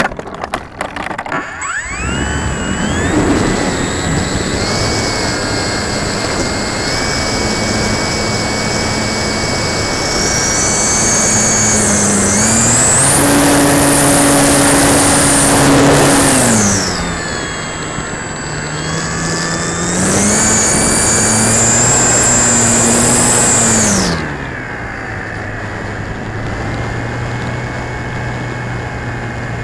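Durafly Tundra RC plane's electric motor and propeller heard from onboard, a whine that steps up in pitch and loudness to full throttle about twelve seconds in, eases off near seventeen seconds, climbs again around twenty seconds and drops back near twenty-four seconds. A rattle of knocks in the first two seconds.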